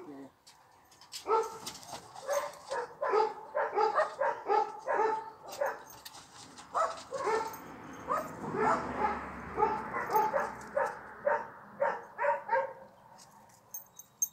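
Dog barking over and over, a few barks a second, starting about a second in and stopping shortly before the end.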